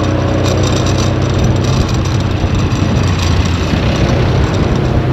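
A motor vehicle's engine running steadily, a constant low hum under an even hiss.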